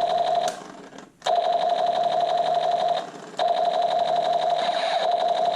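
Electronic firing sound effect of a battery-powered lights-and-sound toy gun, played through its small speaker: a rapid, steady buzzing tone that cuts out about half a second in, comes back just after a second, and breaks off again briefly around three seconds.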